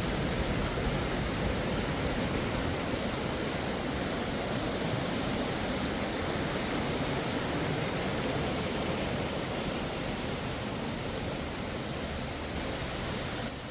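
Steady rush of running water, an even roar with no breaks, dropping slightly in level near the end.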